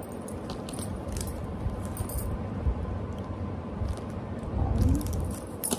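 Small clicks and clinks of hands handling a comb in plastic packaging, with the bangles on her wrists clinking as she moves.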